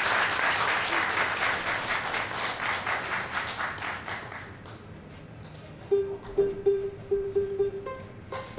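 Audience applause dying away over the first few seconds. Then a plucked string instrument sounds a run of quick repeated notes on one pitch, followed by a few higher plucked notes near the end.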